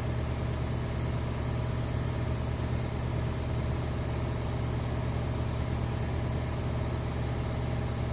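Steady low mechanical hum with a constant pitch.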